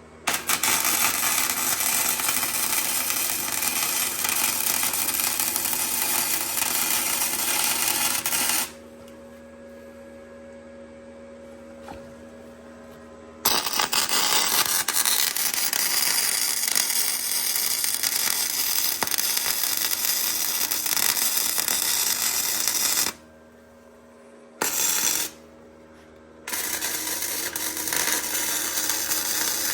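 Flux-core wire-feed welder laying stitch welds: a steady crackle in four runs, one of about eight seconds, one of about ten, a brief blip and a last run near the end. A low machine hum with a steady tone fills the gaps.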